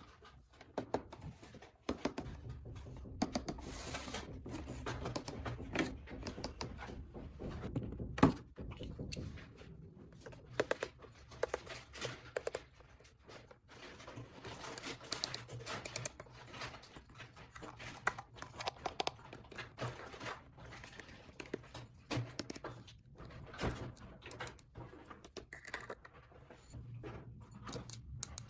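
Small plastic toy parts and packaging being handled: irregular clicks, taps and light rustling, with one sharper knock about eight seconds in.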